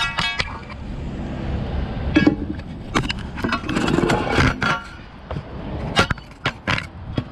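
Footsteps on asphalt with scattered knocks and clinks from a steel manhole lifting bar being carried, over a steady low rumble.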